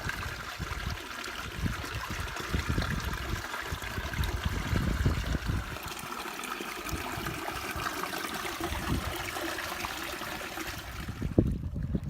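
Running wadi water babbling over rocks, a steady trickling murmur, with irregular low rumbling underneath; the water sound drops away near the end.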